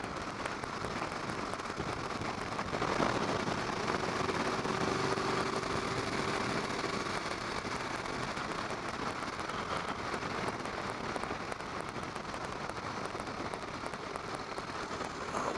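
Steady rush of wind over the microphone of a camera riding along on a motorcycle at road speed, with the bike's running noise blended into it.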